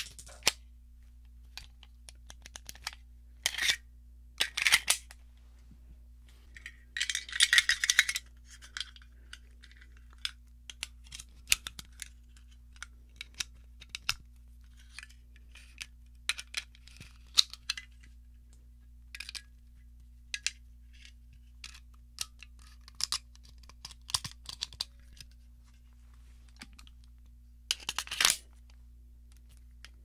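A Springfield Armory 1911 pistol fitted with a weapon light being handled unloaded: scattered small metallic clicks and rattles, with a longer scraping rattle about seven to eight seconds in and another loud cluster near the end.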